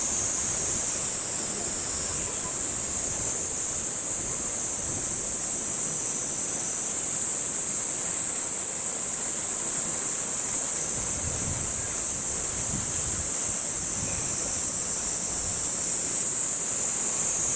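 Cicada chorus: a steady high-pitched shrill drone that runs unbroken, over a faint low rumble of outdoor noise.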